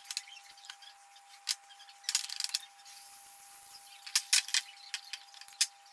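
A spoon scraping and clicking against a ceramic bowl while dip is spooned out: scattered short scrapes and clicks, bunched around two seconds in and again around four seconds in, over a faint steady hum.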